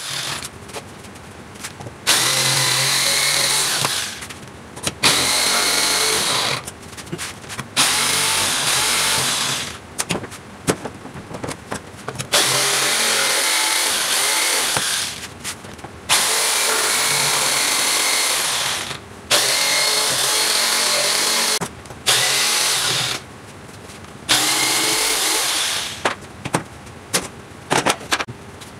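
Handheld electric jigsaw cutting a thin wooden board, running in loud stretches of a few seconds that stop and start about half a dozen times.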